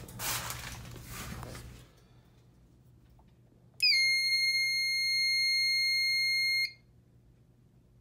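Fire alarm control panel's built-in piezo sounder giving one steady, high-pitched beep about three seconds long, as a button on the panel's keypad is pressed during reset. The beep cuts off sharply.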